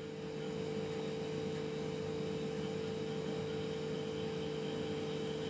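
Steady low hum with an even faint hiss, unchanging throughout.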